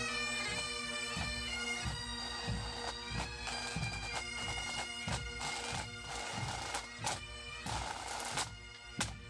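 Massed Great Highland bagpipes and pipe band drums playing a tune: a steady drone under the chanter melody, with drum strokes about twice a second. Near the end the pipes die away and the drums carry on.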